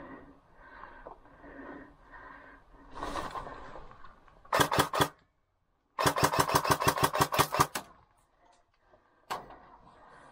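An airsoft electric gun firing on full auto. First comes a short burst of about five rapid shots. About a second later comes a longer burst of about fifteen shots lasting nearly two seconds.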